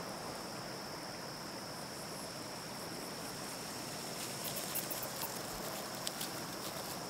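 Nature ambience of a steady high insect trill over an even hiss, with a few faint ticks a little past halfway.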